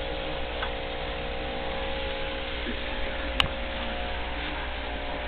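Steady hum of running aquarium equipment, with one sharp click about three and a half seconds in.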